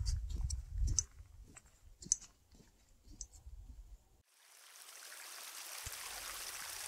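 Footsteps crunching on snow, irregular clicks over a low rumble, then a sudden cut about four seconds in to the steady hiss of spring water running, fading in over about a second.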